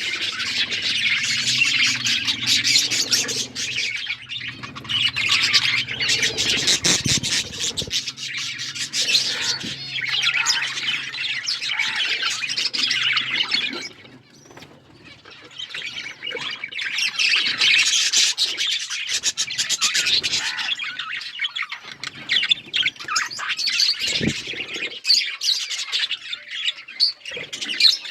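Several budgerigars chattering, chirping and squawking continuously, with a brief lull about halfway through.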